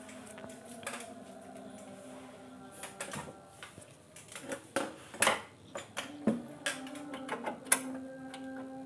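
Irregular sharp clicks and taps of a screwdriver and screws on the plastic back cover of an LCD TV being opened. The clicks come thicker from about three seconds in, over a steady low hum.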